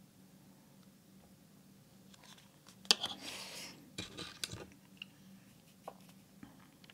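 Small objects being handled: a sharp click about three seconds in, a short scraping rustle right after it, then a few lighter clicks and taps.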